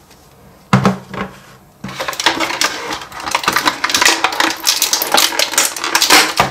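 Hard plastic Play-Doh pieces (tools, molds and dough cans) clicking and clattering together as they are handled. There is one knock about a second in, then a dense run of rattling and tapping.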